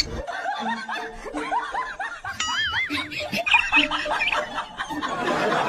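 People laughing in short, repeated snickers and chuckles, with a brief wavering high whistle about two and a half seconds in.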